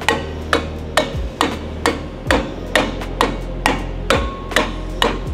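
Rubber mallet lightly tapping the valve stem tips of a rebuilt 6.4 Power Stroke diesel cylinder head, one valve after another at about two taps a second, to make sure the valve keepers are seated.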